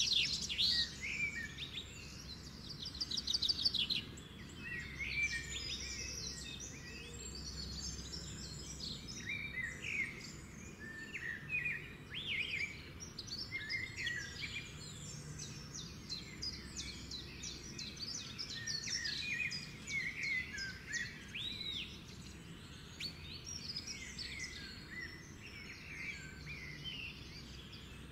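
Many birds chirping and singing together: a dense run of short calls, slurred whistles and a fast trill about three seconds in, over a faint low hum.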